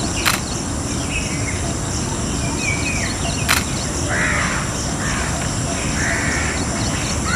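A bird calling several times over a steady outdoor background with a constant high-pitched drone. Two sharp clicks, one near the start and one about three and a half seconds in.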